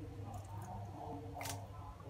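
A kitchen knife scraping a whole fish on a wooden chopping block: two short scrapes, the louder one about one and a half seconds in, over a low steady hum.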